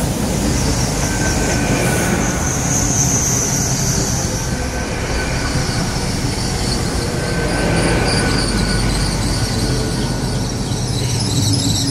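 GWR Hitachi Intercity Express Train running slowly along the platform, a steady rumble with high-pitched wheel squeal rising and fading, strongest a few seconds in and again near the end.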